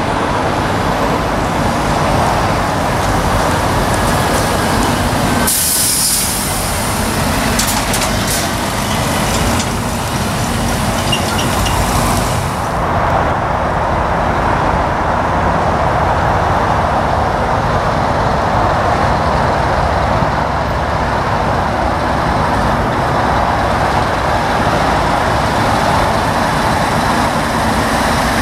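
Heavy Scania lorry diesel engines running as the trucks manoeuvre slowly, with a loud air-brake hiss from about five seconds in lasting around seven seconds, broken by a few sharp bursts of air.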